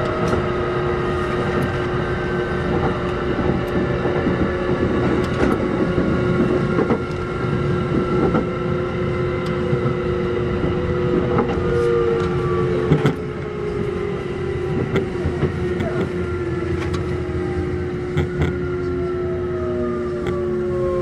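Kintetsu 1201 series electric train running, heard from on board: a low rumble with scattered clicks from the wheels on the track, and motor whine falling slowly in pitch as the train slows for the next station. A steady hum runs under it and stops near the end.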